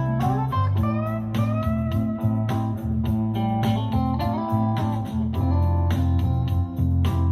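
Music played through a portable Bluetooth speaker: guitar with sliding, bending notes over a steady beat and heavy bass.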